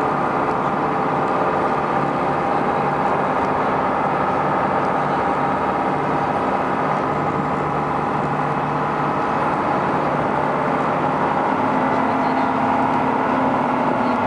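Passenger ferry's engine running steadily under way, a constant hum with several steady tones over the rush of water and air.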